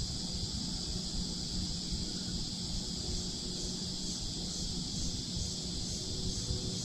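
Steady, high-pitched chorus of insects with a faint pulse, over a low rumble.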